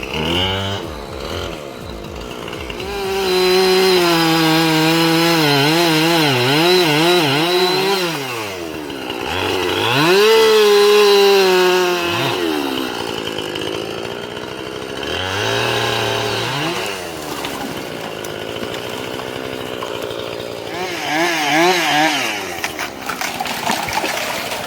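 Chainsaw running under load while cutting, its engine pitch wavering rapidly as the chain bites. It revs up hard about ten seconds in, then drops back lower a few times.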